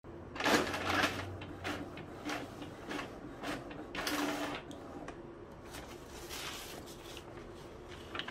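Epson EcoTank ET-2550 inkjet printer printing a test page, its print-head carriage making repeated whirring passes back and forth, with the passes loudest in the first half. The printer is working again after its waste ink pad counter was reset.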